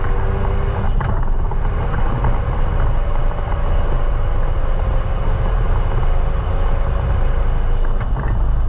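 Renault Mégane Sport 225's turbocharged 2.0-litre four-cylinder engine running hard on track, its pitch drifting slowly, with a sudden change in the sound about a second in.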